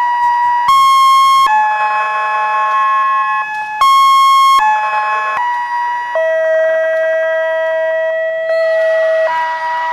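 A slow electronic melody of long held notes, stepping to a new pitch about every second.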